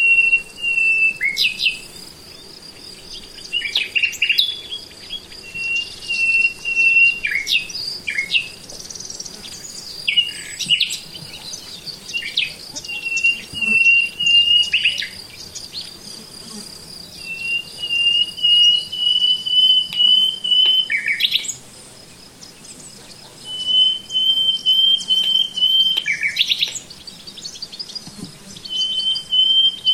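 A songbird singing, repeating a high, steady trill every four to five seconds, each phrase ending in a quick downward flourish. A steady high-pitched insect buzz runs underneath.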